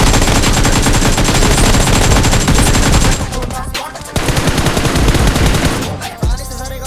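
Rapid automatic gunfire sound effect within a hip hop track, in two long bursts with a short break about three seconds in. Near the end it gives way to the track's music.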